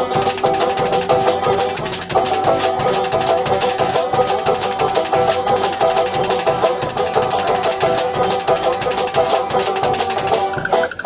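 Live band playing an instrumental passage without singing: banjo and drum kit with a large bass drum, held notes over a fast, busy beat.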